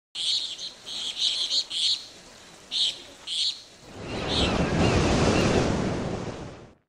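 Birds chirping in short quick bursts, then about four seconds in a wave of surf surges in and fades out just before the end.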